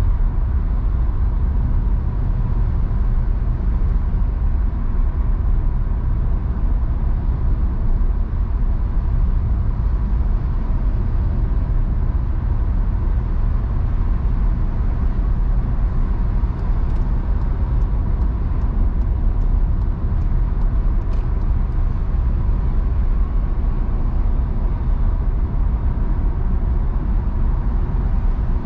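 Car cruising at motorway speed: a steady, even rumble of tyres on the road and engine, with a faint constant tone above it.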